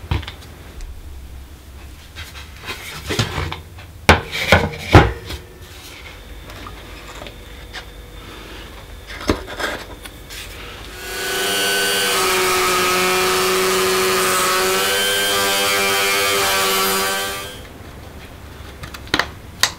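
Small knocks and clicks of hand tools and metal parts, two loudest around four to five seconds in. About eleven seconds in, a Dremel rotary tool in a plunge router base spins up and runs at a steady speed for about six seconds, a steady whine over a hiss, then winds down.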